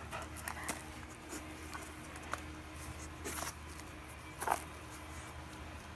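Soft rustling and a few brief scratchy noises as a hand rubs a dog's fur and the dog shifts about, over a faint steady low hum.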